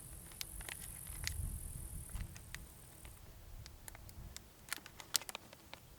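Scattered small clicks and taps of fishing tackle and bait containers being handled, over a low rumble, with a steady high hiss that stops about three seconds in.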